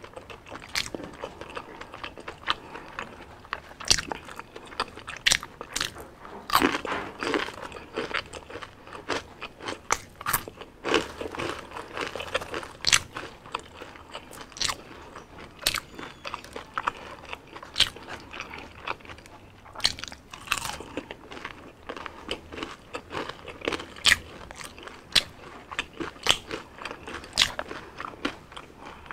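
Biting and chewing crispy deep-fried street food, with repeated sharp, irregular crunches.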